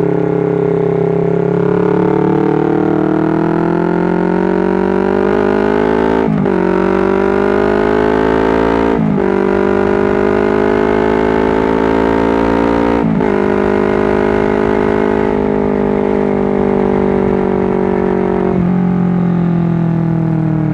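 Honda CBR250RR motorcycle engine under way, rising in pitch as it accelerates and dropping sharply with brief breaks about 6, 9 and 13 seconds in as it shifts up through the gears, then running more steadily before its pitch falls near the end.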